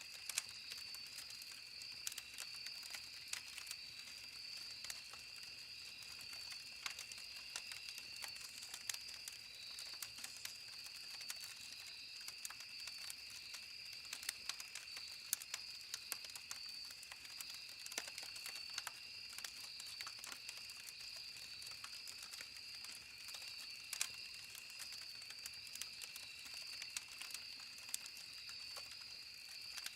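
Campfire crackling: irregular sharp pops and snaps, several a second, over a steady high-pitched drone in two tones.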